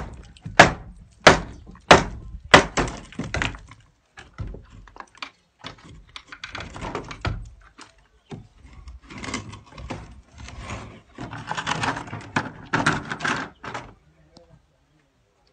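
Heavy, sharp knocks at a steady pace of about three every two seconds, stopping about two and a half seconds in. Scattered lighter knocks and scraping noise follow, and the sound dies away near the end.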